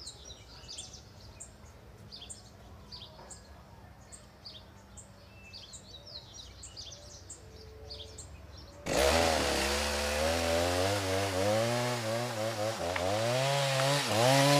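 Birds chirping faintly for about nine seconds, then a chainsaw starts suddenly and loudly. It revs up and down as it cuts through a tree trunk.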